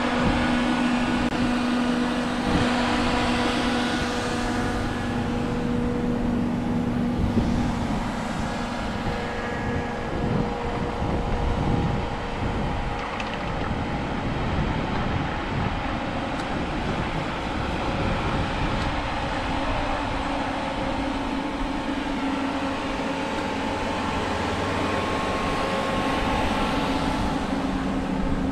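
A motor vehicle running steadily: an engine drone under a wash of road or wind noise. The engine tone fades about ten seconds in and returns slightly higher near twenty seconds.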